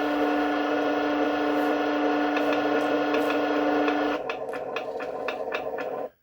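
A small electric gear motor in a 1/16 RC tank's main-gun recoil unit whirring steadily, then stopping about four seconds in, followed by a run of quick, evenly spaced clicks.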